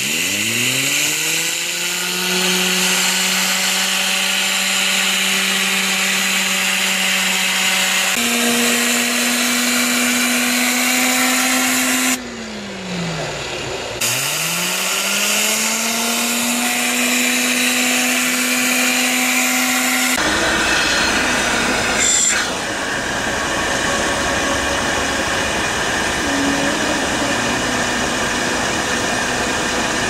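Vacuum cleaner motor spinning up with a rising whine, then running steadily over a hiss of air through the extraction nozzle. The whine steps up in pitch about 8 s in, winds down about 12 s in and spins up again two seconds later. From about 20 s a steady rushing noise takes over, with a click a couple of seconds later.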